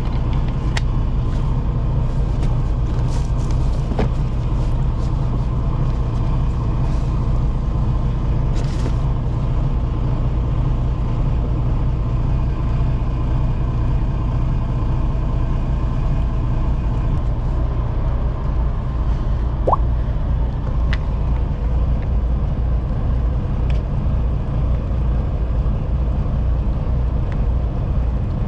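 Fishing boat's engine running steadily: a constant low drone.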